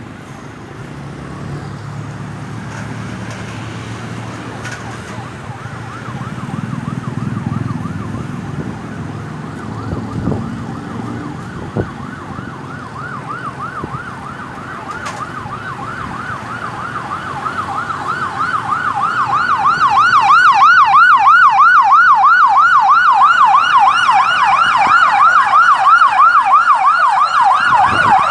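Ambulance's electronic siren in a fast yelp, its pitch swinging up and down about three times a second. It grows steadily louder as it approaches and is loudest in the last several seconds, with a low road rumble underneath at first.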